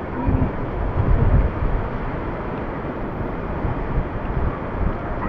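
Wind buffeting the action-camera microphone: a steady, loud rumbling noise that swells and dips with the gusts.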